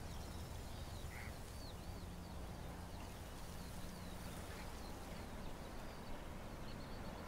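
Quiet outdoor ambience: small birds chirping faintly over a low steady rumble.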